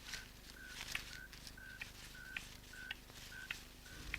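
Faint series of short chirps at one steady pitch, about three a second, with soft clicks between them.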